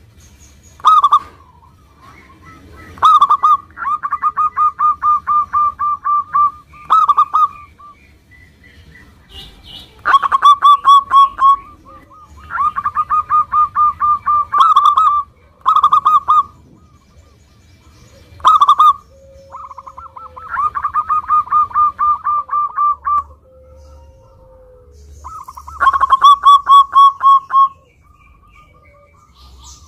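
Zebra dove (perkutut) singing: phrases every few seconds, each an opening coo followed by a fast run of short, evenly pulsed coos, with quiet gaps between.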